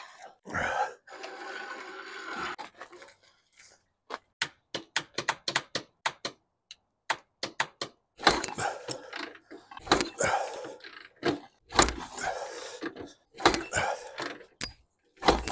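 A Harley-Davidson Shovelhead V-twin being kicked over by hand with its kickstarter, a scraping thud with each of several kicks about two seconds apart, and the engine not firing. Before the kicks, a run of short light clicks.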